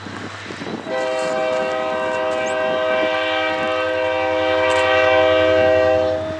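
Union Pacific SD40-2 diesel locomotive's air horn sounding one long blast of about five seconds, a steady chord of several tones, starting about a second in. Under it the locomotive's diesel engine runs with a steady low drone.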